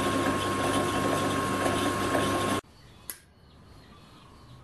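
Bench drill press running steadily with a constant whine, its bit drilling a small hole in a metal part. It cuts off suddenly about two and a half seconds in, leaving a quiet background with a single sharp click.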